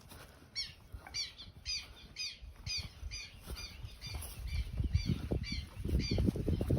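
A bird calling over and over with short, harsh squawks, about two a second, each falling in pitch. Over the second half a low rumbling, thudding noise builds up and becomes louder than the calls.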